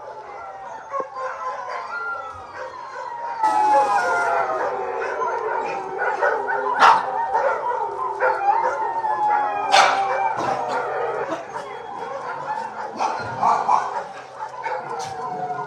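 A chorus of many dogs howling together, overlapping wavering howls rising and falling in pitch, with sharp barks cutting through, the two loudest about 7 and 10 seconds in.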